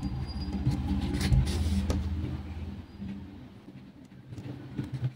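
Low, steady motor hum that fades away about three seconds in, with a few faint clicks.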